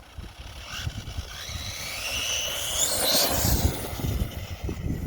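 High-pitched whine of an RC crawler's 3600 kV brushless motor and gear drive on 3S, rising in pitch as the car accelerates for a couple of seconds and then falling away, over a low rumble.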